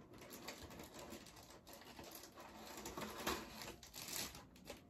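Faint rustling, crinkling and small taps of cosmetic packaging being handled and opened, a little louder about three and four seconds in.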